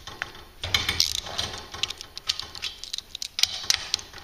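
Irregular light clicks, taps and clinks of metal hardware being handled, scattered through with a few louder knocks.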